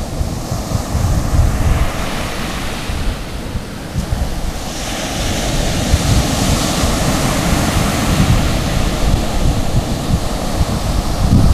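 Ocean surf breaking on a sandy beach, its hiss of foam swelling about halfway through as a wave comes in. Wind buffets the microphone throughout.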